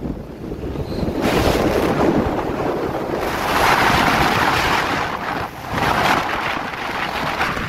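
Wind buffeting the microphone of a phone filming from a moving vehicle: a loud, rushing noise that swells about a second in and is strongest around the middle.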